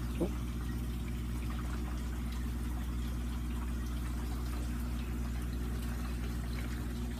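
Steady electric hum of an aquaponic system's pumps running, with water trickling and bubbling through the tank and grow beds.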